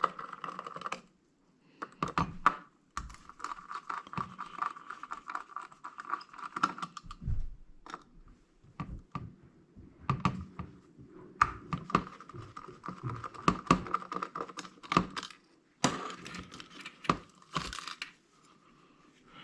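Hard drive parts being taken apart by hand: irregular small metal clicks, taps and scraping as a part is removed. A faint steady high tone comes and goes behind it.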